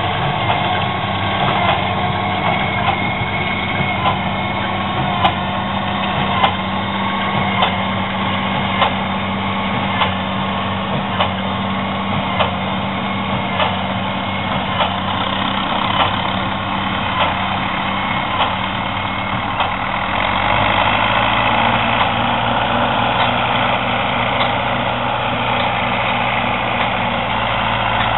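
Fendt tractor engine running steadily while pulling a Claas large square baler, with a sharp knock about every 1.2 s from the baler's plunger stroke. About two-thirds of the way through the knocks stop and a lower, steady tractor engine drone takes over, from a red tractor pulling a rotary hay rake.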